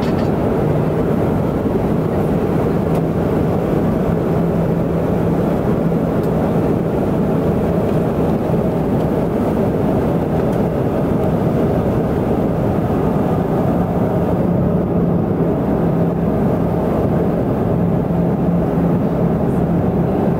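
Steady drone of a small propeller airplane's engines heard inside the cabin in flight, with a low steady hum running through it.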